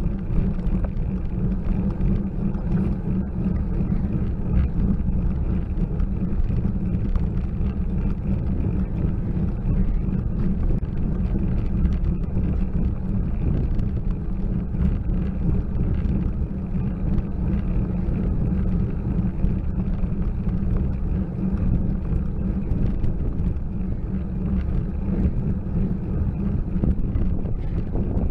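Steady low rumble of wind and road vibration on a bicycle-mounted camera's microphone as the bike climbs slowly, at about 9 mph, on tarmac.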